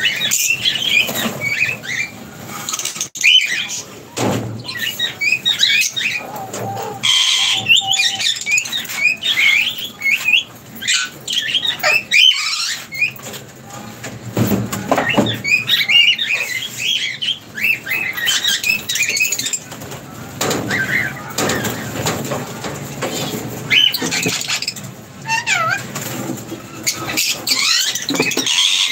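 Lovebirds chattering in rapid, high, chirping calls, with wing flaps as birds fly to and from the perch.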